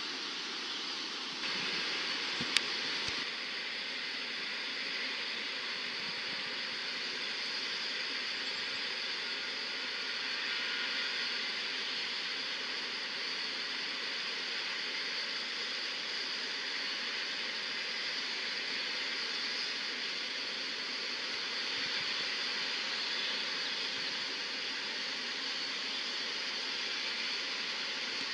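Steady hiss and rolling noise heard from inside a moving vehicle, with one sharp click about two and a half seconds in.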